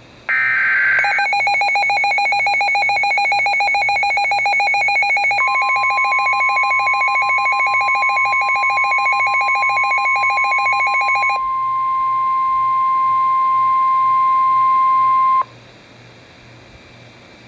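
NOAA Weather Radio Emergency Alert System alert for a severe thunderstorm warning. It opens with a brief burst of digital SAME header data, then a rapidly pulsing beeping alarm. About five seconds in, the steady 1050 Hz warning alarm tone joins it. The tone carries on alone after the beeping stops and cuts off abruptly a couple of seconds before the end.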